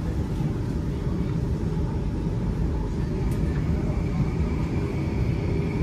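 Singapore MRT train heard from inside the carriage: a steady low rumble, with a faint high steady tone coming in about halfway through.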